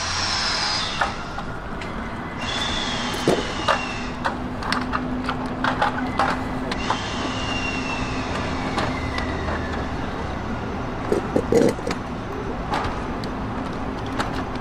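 Rail yard sounds around a standing electric locomotive. A steady low hum sets in a couple of seconds in, three whistle-like tones slowly fall in pitch, scattered clicks come and go, and a cluster of louder knocks comes about two-thirds of the way through.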